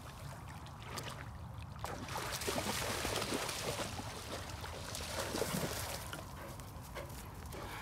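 Lake water sloshing and splashing as a large dog wades through the shallows, with a steady low rumble underneath.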